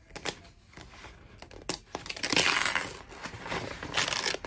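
Magazine pages rustling and crinkling as a page is pulled at and torn out, with a few sharp paper snaps early on and a longer stretch of rough tearing from about two seconds in. The page resists and is hard to tear out.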